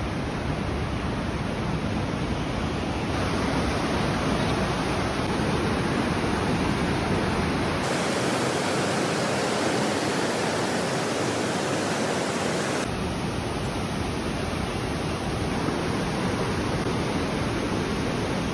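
Mountain creek rushing and churning over boulders in a narrow rock gorge: a loud, steady roar of whitewater. Its tone changes suddenly three times as clips are cut together.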